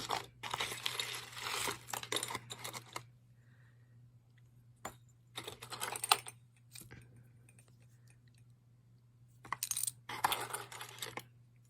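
Small metal costume jewelry clinking and jingling as pieces and chains are handled and set down, in three bouts of rattling with quieter pauses between.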